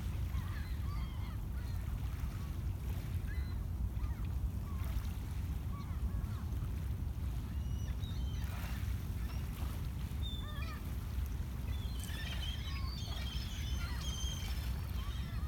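Gulls calling: scattered short cries, then a quick run of calls from about twelve seconds in, over a steady low rumble.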